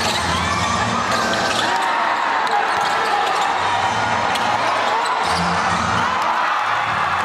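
Live basketball game on an indoor court: the ball bouncing and sneakers squeaking on the floor in short rising and falling chirps, over voices from players and crowd.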